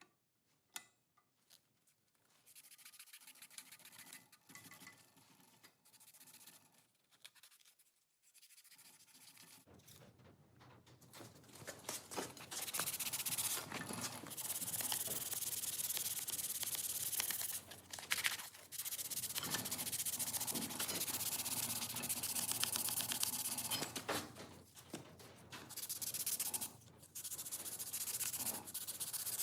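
Sandpaper rubbing back and forth as a puukko knife is hand sanded through fine grits. Faint at first, then louder and steady for the second half, with a few short pauses.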